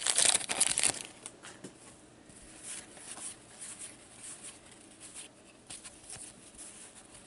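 A foil hockey card pack crinkling as it is pulled open, then trading cards being slid and shuffled through by hand, leaving soft rustles and light ticks. The crinkling is the loudest part, in the first second; after that the card handling is quiet.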